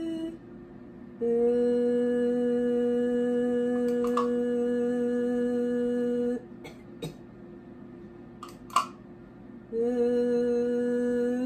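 A woman's voice holding a steady sustained vowel at one pitch for about five seconds, sung with a stroboscopy scope in her throat while her vocal folds are filmed. After a pause broken by a few sharp clicks, the same held note starts again near the end.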